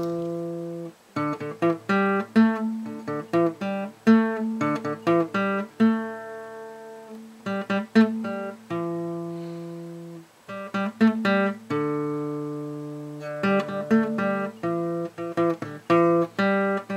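Acoustic guitar music: a run of plucked notes and strummed chords, each ringing and fading away.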